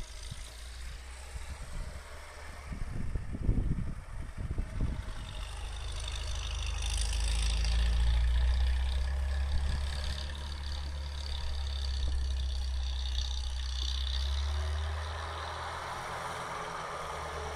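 ARO M461 off-roader's engine running as it drives and slides through deep snow, swelling to its loudest about eight seconds in, with a hiss of snow churned up by the tyres. A few low thumps of wind on the microphone come about three to five seconds in.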